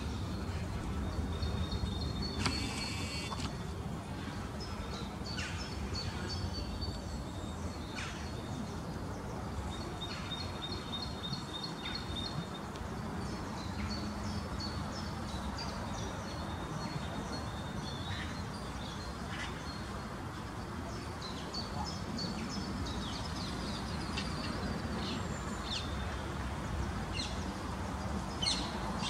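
Bird calls every few seconds, some as rapid runs of high, evenly spaced chirps and others as short sharp single calls, over a steady low outdoor rumble.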